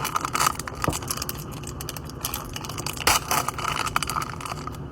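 Plastic packaging of Disney Doorables mini figure packs crinkling and crackling as it is torn open, with irregular clicks and a sharper snap about three seconds in.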